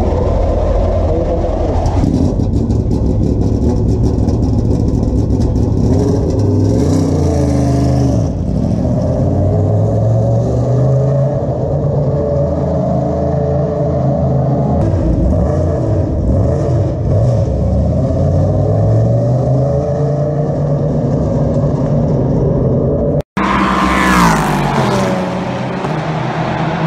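LMP3 prototype race cars' V8 engines running and revving in the pit lane, the engine note repeatedly rising and falling. Near the end a racing car passes at speed with a sharply falling pitch.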